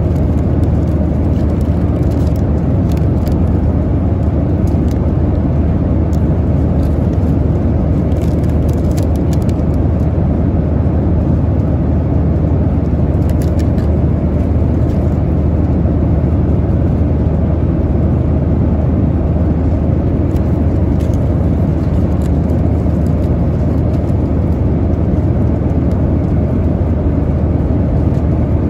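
Steady cabin noise of a Boeing 737-900ER in flight, the constant low rush of engines and airflow, with a few faint crinkles of snack wrappers and a cardboard box being handled.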